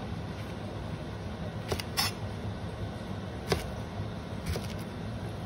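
Chef's knife slicing through fresh okra and tapping on a cutting board: about five short, sharp knocks at uneven spacing, the loudest about two seconds in. A steady low hum runs underneath.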